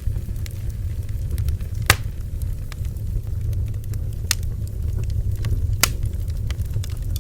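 Bonfire burning: a steady low rumble of the flames with sharp crackles and pops of burning wood, the loudest pops about two seconds in, around four seconds and near six seconds.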